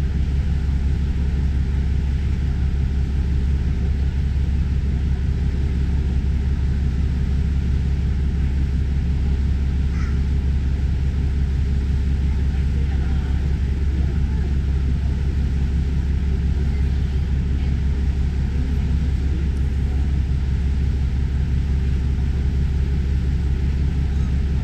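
Steady low drone of the JR Miyajima ferry's engine and hull under way, holding an even level throughout.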